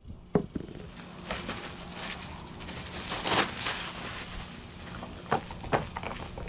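Handling noise: a knock as a phone is set down on a wooden table, then crinkling of plastic wrap and rustling as thick grill gloves are unwrapped and pulled on, with a couple of light knocks near the end.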